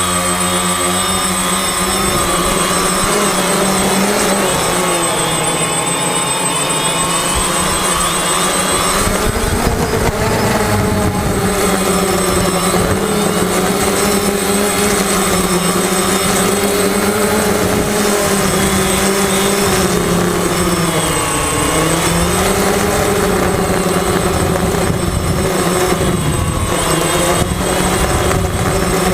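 FPV racing quadcopter's electric motors and propellers whining continuously, the pitch wavering up and down as the throttle changes, with wind noise underneath.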